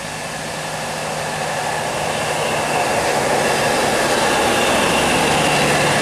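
A tour bus's diesel engine pulling up a grade, growing steadily louder as the bus approaches and passes close by, with a steady low engine note and a high whine over it.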